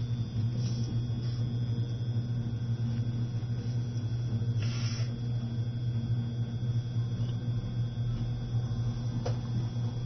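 Cabin noise of an E653 series electric train running slowly: a steady low hum and rumble, with a brief hiss about halfway through and a single click near the end.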